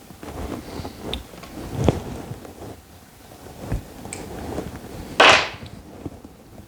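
Chainsaw parts and tools being handled on a workbench: scattered knocks and clicks, with a brief louder rasp about five seconds in.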